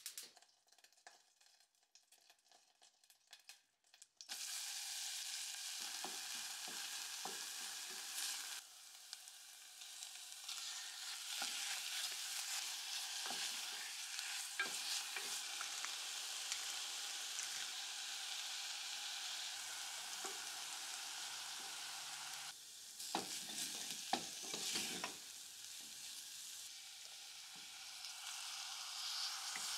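Chopped chicken breast and onion sizzling in butter in a stainless steel pot, starting abruptly about four seconds in after a quiet start. A wooden spatula scrapes and knocks against the pot throughout as they are stirred, with a cluster of louder knocks near the end.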